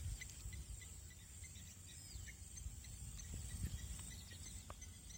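Faint outdoor ambience: insects chirping in a steady run of short, high chirps several times a second, over a low rumble of wind.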